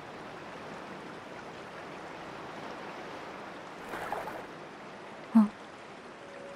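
Steady rush of flowing river water, with a short splash about four seconds in and a brief, sharp sound about a second later, the loudest thing here.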